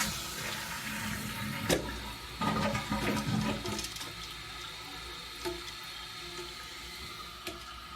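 2012 Kohler Wellworth toilet flushing: water rushes out of the tank for the first few seconds, with a click near the start. It then settles into a steady, quieter hiss as the tank refills.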